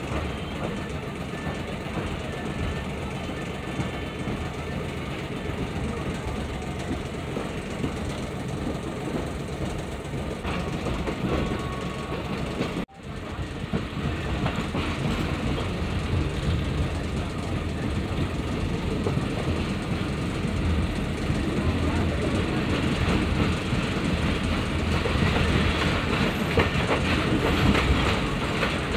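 Shalimar Express passenger train running along the track, heard aboard a coach: continuous rumble of wheels and coach. It cuts out abruptly for a moment about thirteen seconds in, then comes back and grows gradually louder.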